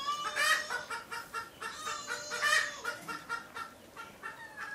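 Chickens clucking: a run of short clucks several a second, with louder, longer calls about half a second in and again midway.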